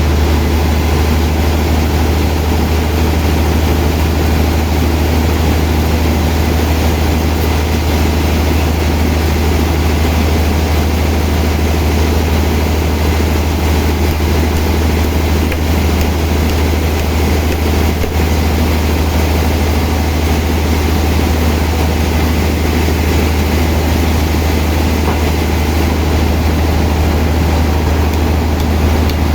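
Sawmill machinery running steadily while sawing a large log: a constant deep hum under an even, noisy whir that holds without a break.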